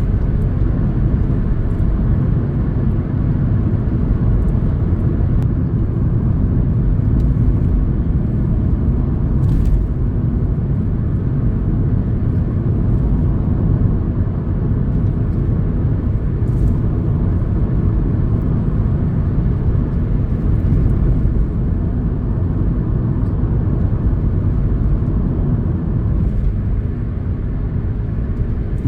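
Car driving at a steady speed, heard from inside: a steady low rumble of engine and tyre noise on the road.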